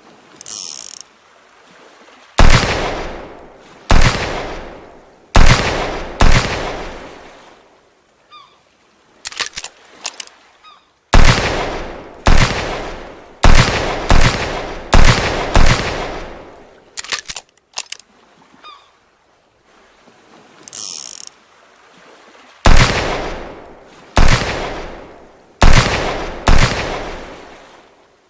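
Handmade revolver gunshot sound effect: sharp shots, each with a long echoing tail. They come in volleys of four, then six, then four, with a few short clicks between the volleys.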